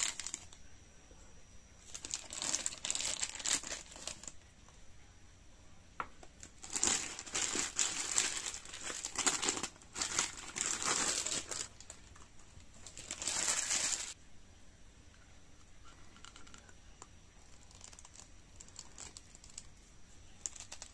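Thin clear plastic bags crinkling as hands unwrap figure parts, in several bursts through the first two-thirds, with a single sharp click between them. The last few seconds hold only faint handling.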